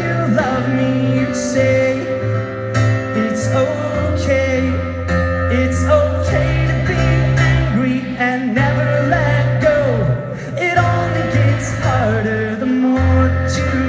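Live rock band playing a slow song, with held Nord keyboard chords changing every couple of seconds under a gliding melody line.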